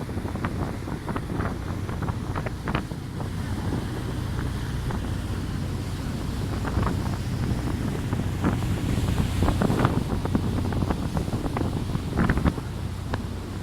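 A motorboat under way: its engine running with a steady low rumble beneath rushing water and wind, with gusts buffeting the microphone in frequent crackling bursts.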